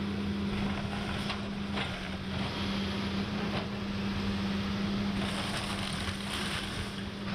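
A 450C LC tracked excavator's diesel engine running with a steady low hum as it tears down a wood-framed mobile home. A few sharp cracks of breaking wood come in the first few seconds, and debris crunches more busily later on.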